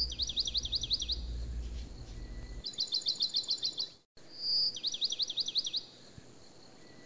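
A small bird singing, with short phrases of rapid high chirps repeated four times with pauses between them. A low hum sits underneath during the first part and stops after about two and a half seconds.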